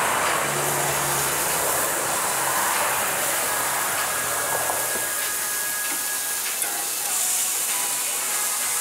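Hamburger patties sizzling on a gas grill: a steady hiss, with a faint low hum during the first half.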